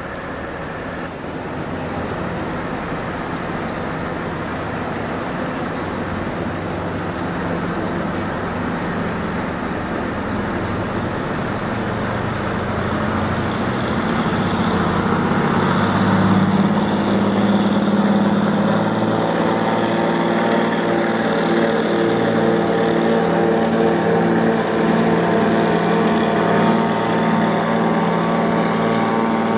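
The MV Quinsam car ferry's engines run as it moves slowly into its slip. The steady hum grows louder as the ship draws close, and about halfway through several steady engine tones come out clearly above it.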